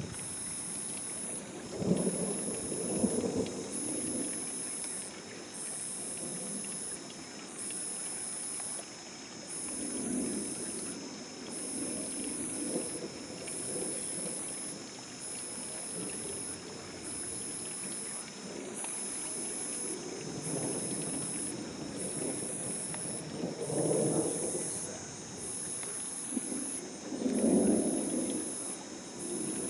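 Thunder rumbling again and again as a summer thunderstorm passes, in rolling swells that come and go, loudest a couple of seconds in and again near the end. Underneath runs a steady high-pitched chorus of night insects, pulsing about once every two seconds.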